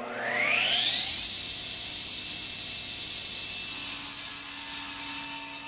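Table saw motor switched on: a whine rises in pitch for about a second as the blade spins up, then holds steady as the saw runs at full speed, with a slight change in tone a little after halfway.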